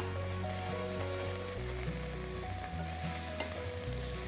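Paneer cubes with onion and dried red chillies sizzling in hot oil in a pan while being stirred with a wooden spatula.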